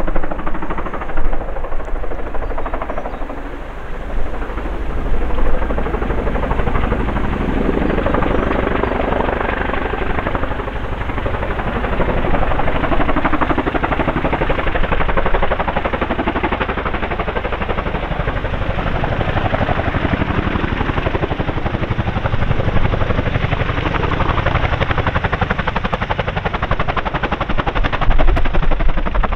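Boeing CH-47F Chinook tandem-rotor helicopter flying low and approaching, its rotor blades beating in a rapid, continuous chop that gets louder near the end as it comes close.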